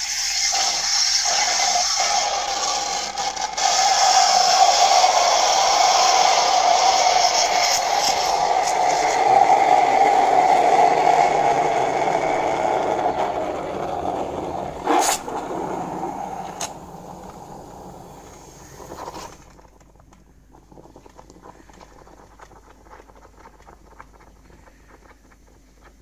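Espresso machine steam wand hissing loudly into a stainless steel pitcher of milk, frothing it to foam. There is a sharp click about 15 seconds in, and the hiss dies away around 19 seconds in, leaving faint ticking.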